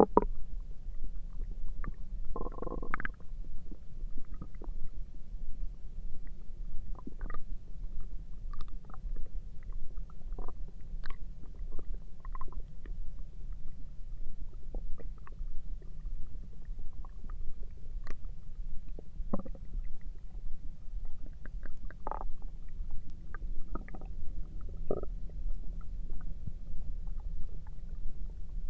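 Human stomach and intestines gurgling, picked up close to the belly: a constant low rumble with short gurgles and squeaks scattered through it, the biggest gurgle about three seconds in.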